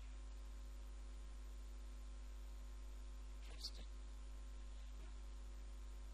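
Steady electrical mains hum with a few faint steady tones above it, and one brief sharp click about three and a half seconds in.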